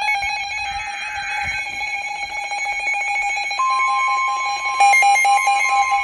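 NOAA Weather Radio emergency alert signal. A buzzy burst of digital SAME header data ends about a second and a half in, under a steady electronic alarm tone with rapid pulsing. The single-pitch 1050 Hz weather-radio warning alarm tone joins about three and a half seconds in, marking a warning.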